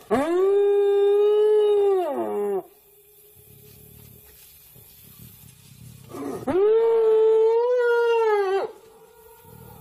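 Spotted hyena giving two long, drawn-out calls a few seconds apart. Each rises sharply, holds a steady pitch for about two seconds, then falls away.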